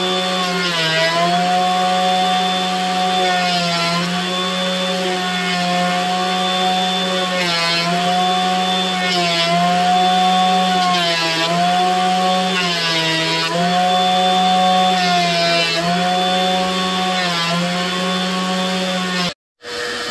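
Benchtop thickness planer running steadily, its motor pitch sagging each time a curly maple board is taken by the cutterhead, with a rough cutting noise on each pass, roughly every two seconds. The sound cuts off abruptly near the end.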